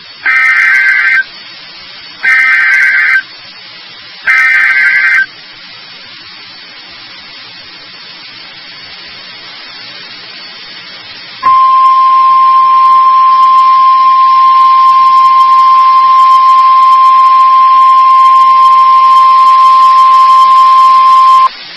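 NOAA Weather Radio alert for a severe thunderstorm warning: three one-second bursts of SAME digital header data, about a second apart. After about six seconds of quiet radio hiss, the steady 1050 Hz NWR warning alarm tone sounds for about ten seconds, then cuts off.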